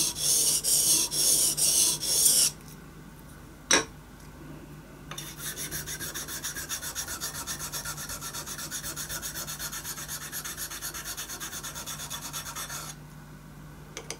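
Gritty rubbing on a sharpening waterstone in steady strokes, about two a second, that stop after a couple of seconds. After a pause and a single click, a small white stone is rubbed quickly back and forth on the waterstone, quieter and in fine rapid strokes, until it stops near the end.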